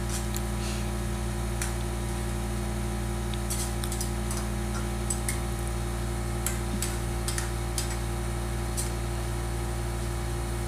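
Metal spoon stirring chicken pieces in sauce in a honeycomb-pattern wok, giving scattered light clicks and scrapes against the pan over a steady low hum.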